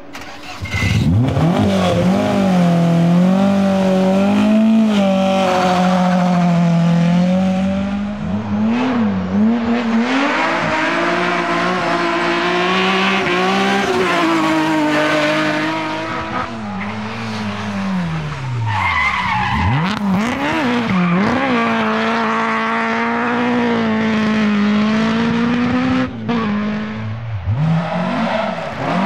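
Historic rally cars, Mk2 Ford Escorts and a BMW E30, driven hard one after another. Their engines rev high, and the pitch repeatedly climbs and drops through gear changes and lifts. The sound gets much louder about a second in as the first car's revs rise.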